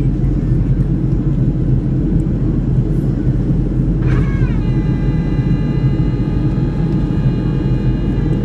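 Steady low rumble of a Boeing 737's engines and airflow heard from inside the cabin in flight. About four seconds in, a whine comes in, sliding down in pitch and then holding steady over the rumble.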